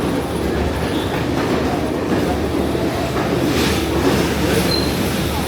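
Sri Lankan hill-country passenger train running, heard from aboard: a steady rumble of the carriage with wheels clattering over the rails. A brief high wheel squeal comes about four and a half seconds in.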